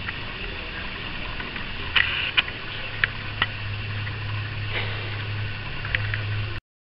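Steady low hum with a handful of short, sharp clicks and taps scattered through it; the sound cuts off abruptly near the end.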